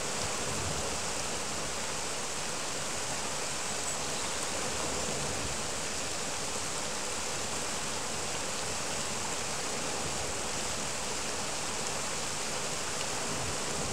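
River water rushing over a low weir: a steady, unbroken rush of white water.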